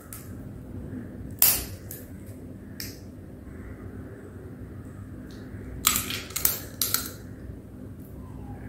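Shell of a cooked prawn being peeled by hand: short, crisp cracks and crackles, the loudest about a second and a half in and a quick cluster of several more around six to seven seconds in. A low steady hum runs underneath.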